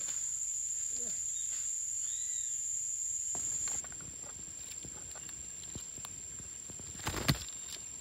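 Green parrots moving about on dry dead branches: scattered clicks, scratches and rustles of claws and beaks on wood, with one loud crackle about seven seconds in. A steady high-pitched whine runs underneath.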